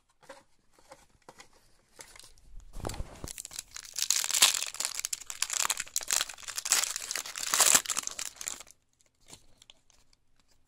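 A pack of trading cards being torn open, its wrapper crinkling and tearing. There are a few light rustles at first, then about six seconds of steady crinkling that stops abruptly near the end.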